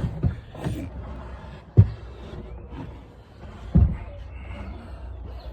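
A large subwoofer speaker box being wrestled out of a car trunk: two heavy thumps about two seconds apart as the box knocks against the trunk, amid lighter scraping and handling noises.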